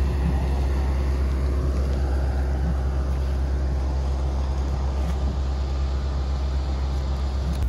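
A vehicle's steady low rumble, running evenly without change.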